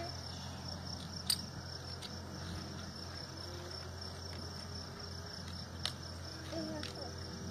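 Farrier trimming a mustang's hind hoof: two sharp snips of the hoof nippers, about a second in and again near six seconds. Under them runs a steady high insect chirring.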